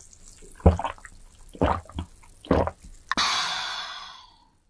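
Three loud swallowing gulps of an iced drink from a glass mug, about a second apart. About three seconds in comes a sharp click as the glass is set down, then a hiss that fades over about a second.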